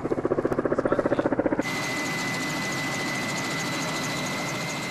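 Cargo helicopter's rotor thudding in a fast, even beat, about six or seven a second. About a second and a half in, the sound changes abruptly to a steady engine drone with a high whine.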